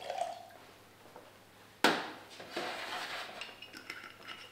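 Bar tools and glassware handled on a steel bar counter while mixing a cocktail: a faint clink at the start, a sharp knock a little under two seconds in, then light clinks and rattling.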